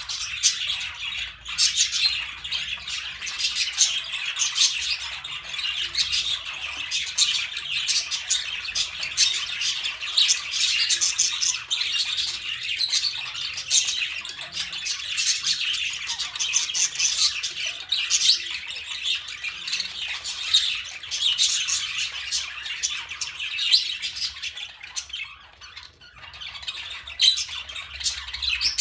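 Many birds calling at once: a dense, continuous chatter of overlapping squawks and chirps, easing briefly about three quarters of the way through.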